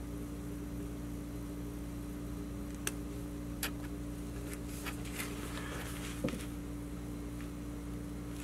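A steady low hum, with a few faint light clicks and taps about three to six seconds in.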